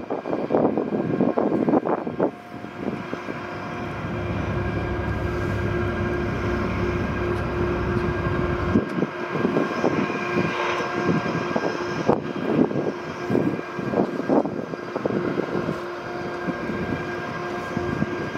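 Diesel locomotive engine running with a steady drone.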